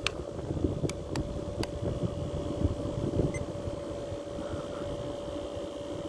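Mid-1980s Fedders 4000 BTU window air conditioner running steadily, its fan and compressor giving a constant hum with one steady tone. In the first two seconds, three or four sharp clicks come from a multimeter's rotary dial being switched back on.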